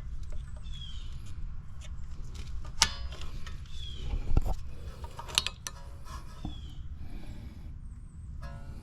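Hand tools clicking and clinking against metal at a car's rear wheel hub, with a few sharp knocks, the loudest a little before halfway. A bird repeats a short falling chirp every few seconds.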